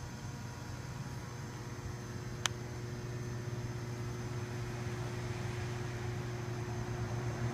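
Steady low mechanical hum, with a single sharp click about two and a half seconds in.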